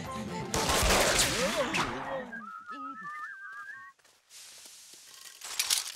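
Cartoon soundtrack: a loud rush of noise with voice-like yelps, then a short warbling whistle, then a soft hiss with a few clicks near the end.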